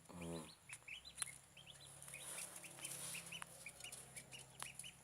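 Newly hatched chicks from an egg incubator peeping faintly: many short, high chirps scattered irregularly. A brief low sound comes right at the start.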